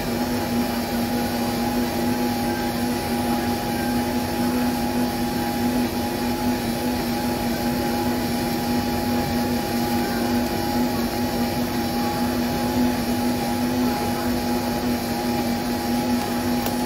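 An electric motor running at one steady pitch: a loud, constant hum that does not change.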